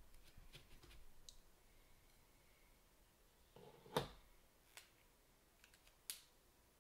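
Near-quiet room with a few light clicks and taps of a pen and ruler being handled on a drawing board, the sharpest about four seconds in.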